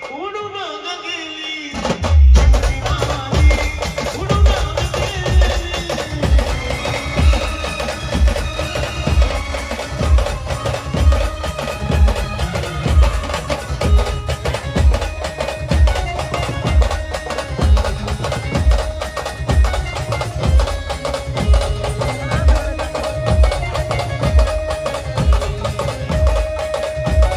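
Brass band playing an instrumental passage of a slow Marathi song: wind instruments carry the melody over a steady bass drum beat, which comes in about two seconds in.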